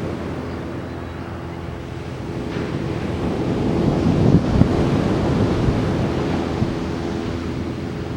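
Ocean surf breaking and washing on a beach, swelling to a peak about halfway through, with wind buffeting the microphone.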